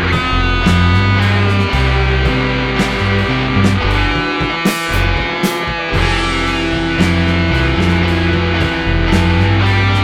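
Rock band playing live: electric guitar over heavy bass with regular sharp hits. The low end drops out briefly about halfway through, then the full band comes back in.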